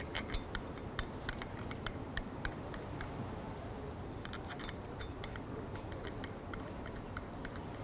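Small metallic clicks and ticks of an Allen key turning and being re-seated in small hex screws, fastening a sensor unit onto a satellite antenna mount. The clicks come irregularly, several a second, with a brief lull about halfway through.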